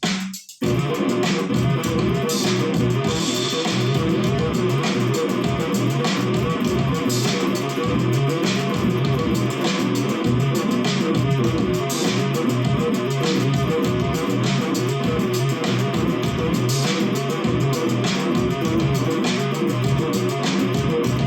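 Electric bass guitar played through a Zoom GM-200 multi-effects unit, a continuous riff of quick plucked notes in a punk-funk style. It starts after a brief gap about half a second in.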